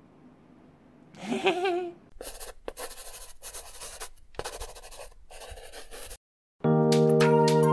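Scribbling pen-on-paper sound effect, a scratchy rasp in several strokes with short breaks, played as a logo's text is written out; a short wavering vocal sound comes just before it. A music jingle starts near the end.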